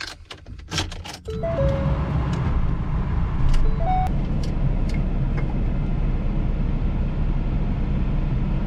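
A few clicks and knocks, then a vehicle engine starts about a second in and runs steadily with a low rumble. A short two-note dashboard chime sounds twice over it.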